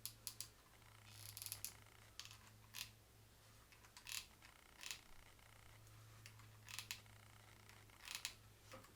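Near silence with faint, scattered clicks and taps, about one or two a second, from handling cardboard tubes and a hot glue gun during crafting, over a faint steady low hum.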